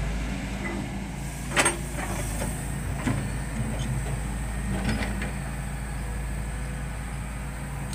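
Volvo EC210D crawler excavator's diesel engine running steadily under load as the machine swings and lowers its boom and bucket, with a few short clanks from the working gear.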